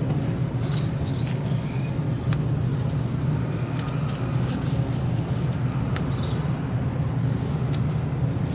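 A steady low hum with a few short, high bird chirps about a second in and again around six seconds, and faint clicks.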